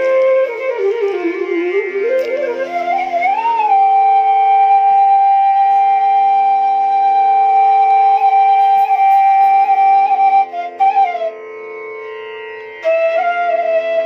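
Flute music over a steady drone: an ornamented melody, then a long held note, then after a short pause near the end the melody picks up again.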